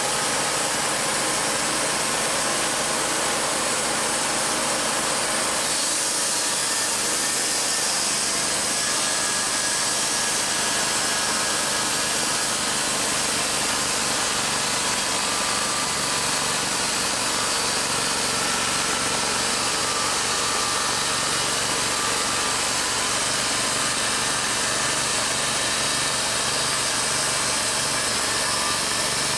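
TimberKing B-20 portable bandsaw mill running steadily, its engine-driven band blade sawing along a walnut log.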